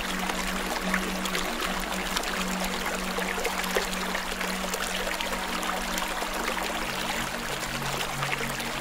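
Soft ambient music with a sustained low note that drops to a lower one near the end, over a steady hiss full of small crackles.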